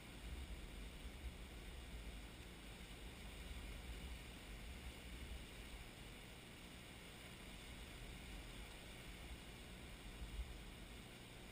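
Faint wind buffeting the microphone, a low wavering rumble that starts just after the beginning and dies away near the end, over a steady faint hiss.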